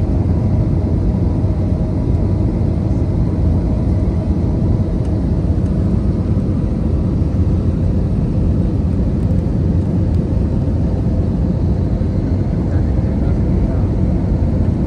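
Steady cabin noise of an Airbus A320-214 heard from a window seat over the wing: the hum of its CFM56-5B turbofan engine and the rush of air, with a few faint steady tones. The plane is descending on approach to land.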